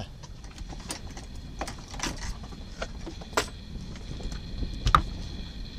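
Scattered clicks and knocks over a low rumble, the sharpest knock about five seconds in: handling and movement noise as someone moves about a boat's cabin with the camera.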